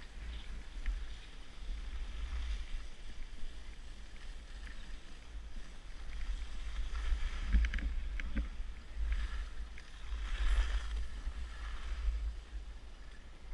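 Wind buffeting an action camera's microphone while skiing, a low rumble throughout, with the hiss and scrape of skis on packed snow swelling and fading. It eases off near the end as the skiers slow down.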